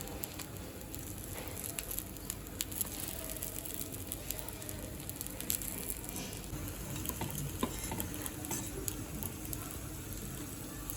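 Appam batter frying in the oiled cups of a paniyaram pan, sizzling steadily, with scattered light clicks.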